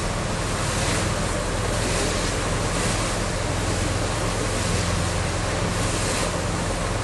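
Steady wind rushing over the microphone on the deck of a moving cruise liner, with a low steady hum from the ship underneath.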